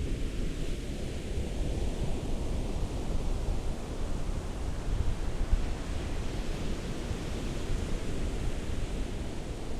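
Ocean surf: a steady rushing wash of waves, swelling slightly and easing, with no distinct single wave crash.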